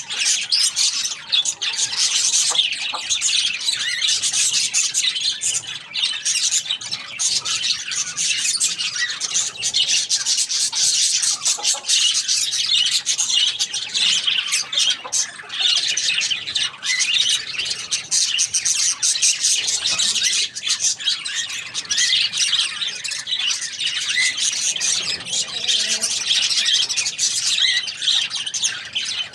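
A flock of small birds chattering and squawking continuously, a dense stream of rapid high chirps with no pause.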